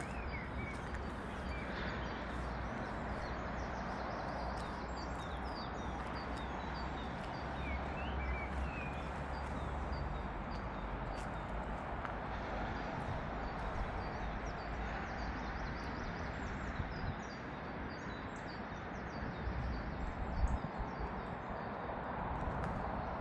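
Outdoor ambience: small birds chirping in short scattered calls over a steady hiss of background noise, with a low rumble of wind on the microphone.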